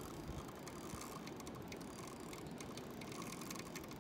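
Spinning reel clicking rapidly and unevenly as a large sturgeon is fought on the line.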